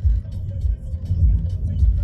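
Low, uneven rumble of a car's cabin, swelling and dipping, with music playing.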